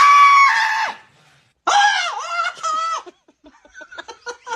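Small fluffy dog giving a long, high-pitched, scream-like howl, then three shorter wavering cries. Near the end come a quick run of softer short clicks.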